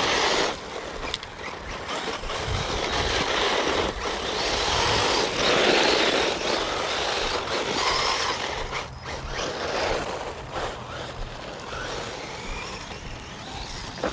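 Cheap RC car driving on a gravel path: a rushing noise of small tyres on gravel and the drivetrain, swelling and fading several times as it speeds up and slows.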